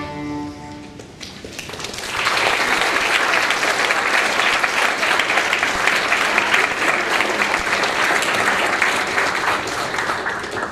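The last chord of violins and clarinet dies away, then audience applause builds within about a second and holds steady, thinning near the end.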